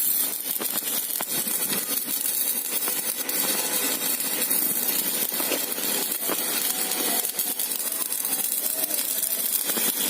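Stick (MMA) welding arc crackling and sizzling steadily as an electrode burns down, run from a repaired MMA200H inverter welder. The steady, unbroken arc is the sign that the repaired machine now welds properly.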